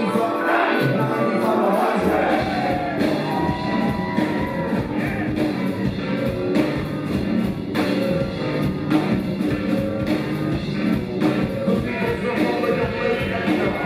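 A rock band playing live, with a steady drumbeat; the bass and low end come in fully about two seconds in.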